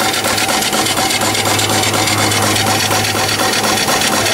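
Small steam engine running steadily at speed, its exhaust beating in a fast, even rhythm over a steady hum, as it drives a belted generator that is charging a battery.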